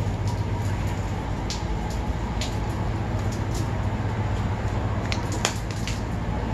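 Steady low mechanical hum, with a few short, sharp ticks scattered over it, several of them close together about five seconds in.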